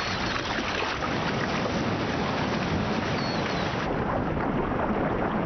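Continuous splashing and churning of river water as animals thrash and wade through it, a dense steady noise that thins slightly about four seconds in.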